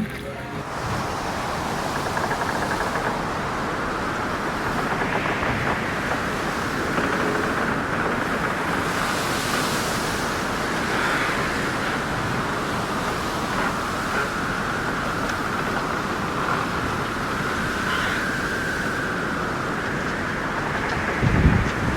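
Storm wind and rough sea waves rushing steadily, with wind buffeting the microphone in low thumps near the end.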